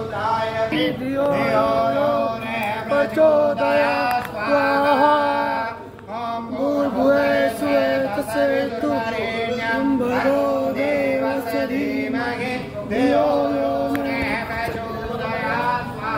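Sanskrit havan mantras chanted by a group of voices together, in long held phrases with brief pauses between lines.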